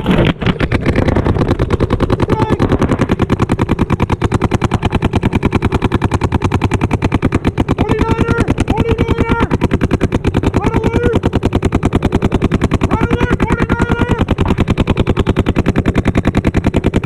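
Paintball marker firing a long, unbroken stream of rapid, evenly spaced shots, laying down suppressing fire across the field.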